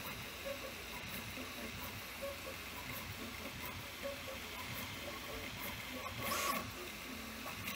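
3D printer running: a steady whirring hiss with short scattered tonal chirps from its motors as it prints, and one brief louder rush of noise about six and a half seconds in.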